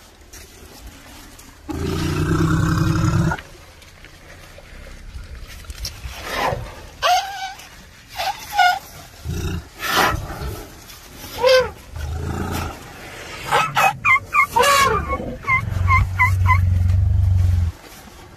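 Young Asian elephants calling: a loud, low rumbling call about two seconds in and another near the end, with shorter squeaky calls that rise and fall in between.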